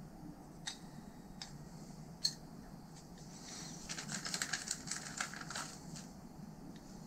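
A few light clicks from handling plastic valve parts, one sharp click about two seconds in, then about two and a half seconds of crinkling as a clear plastic bag of replacement gaskets is handled.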